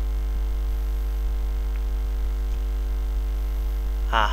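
Steady electrical mains hum and buzz from a poor-quality microphone, a constant low drone with fainter steady overtones.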